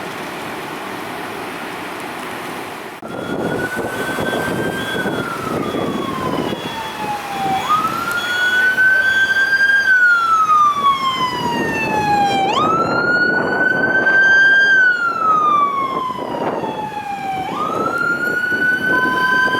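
A steady noisy rumble, then about three seconds in an emergency vehicle's siren starts wailing: each cycle rises quickly and falls slowly, repeating about every five seconds, over engine and road noise.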